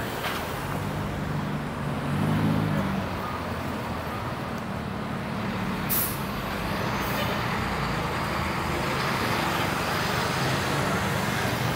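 Steady street traffic, with a heavy vehicle's engine running low underneath, and one short, sharp noise about six seconds in.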